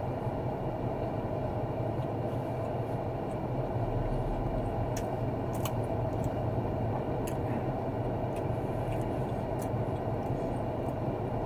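Steady low rumble of an idling car heard from inside its cabin, with a few faint clicks about halfway through.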